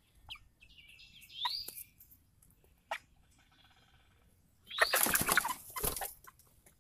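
Red Ranger broiler chickens flapping their wings and scuffling, loudest in a rustling burst about five seconds in, with a few short rising chirps.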